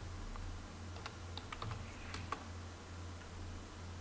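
Light, scattered clicks of computer keys being pressed, over a low steady hum.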